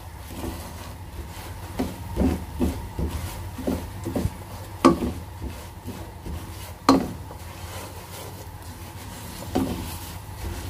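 Silicone spatula stirring and scraping peanuts through sugar syrup that is drying to a sandy crust in a pan. The rubbing and scraping is steady, broken by several sharp knocks, the two loudest near the middle.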